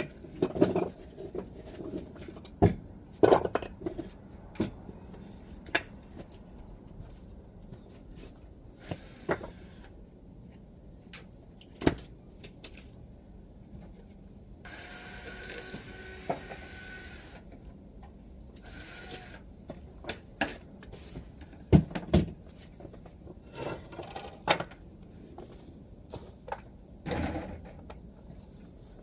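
Irregular knocks, clicks and clatter of burnt greenhouse pieces being handled and set down, with a few sharper bangs and a scraping noise lasting about two seconds around the middle.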